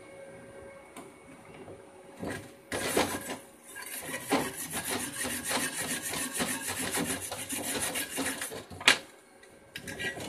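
Rapid, rhythmic scraping on steel, starting about two seconds in and running for some six seconds: a freshly laid flux-core weld being scraped clean of slag. It ends with one sharp knock.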